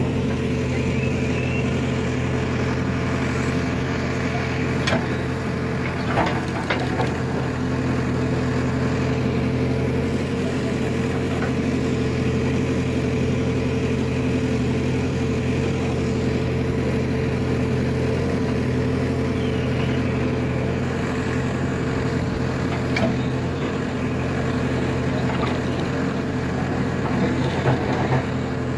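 Heavy diesel engine running steadily at an even speed, with a few light clicks and knocks over it.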